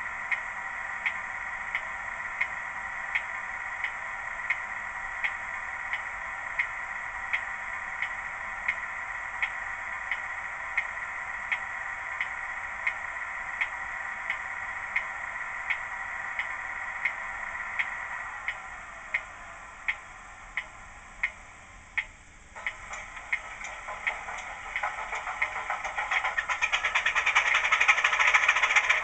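Class 26 diesel start-up sound from a model locomotive's DCC sound decoder, played through its small speaker: a steady hum with a sharp tick about one and a half times a second, fading about 18 seconds in. After a brief drop near 22 seconds a louder engine sound builds up over the last several seconds.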